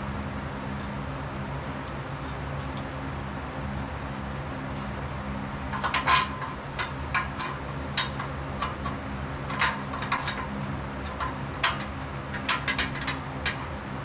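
Irregular sharp metal clinks and taps, mostly in the second half, from assembly hardware and tools knocking against the steel frame of a power rack as its base is being bolted together.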